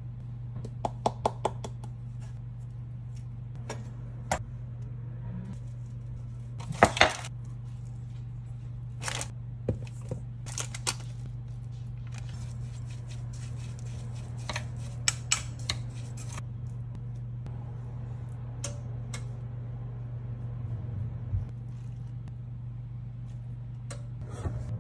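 Kitchen utensils clinking and scraping: a measuring spoon stirring streusel in a glass measuring cup, then a spatula spreading batter in a parchment-lined pan. The scattered sharp clicks are loudest about seven seconds in and thin out in the second half, over a steady low hum.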